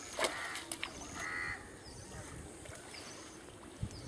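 Water splashing and slapping around a seine net as it is hauled in toward a pond bank, with a few sharp splashes near the start. A bird calls once, briefly, about a second in.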